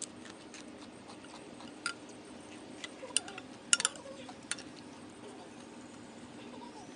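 Cutlery clinking against a dish a handful of times. The sharp clicks are spread through the middle, and the loudest are a quick pair near the midpoint.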